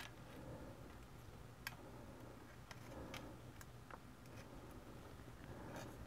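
Near silence with a few faint ticks, spread over a couple of seconds, from a small screwdriver working the screws of a laptop's metal heat shield.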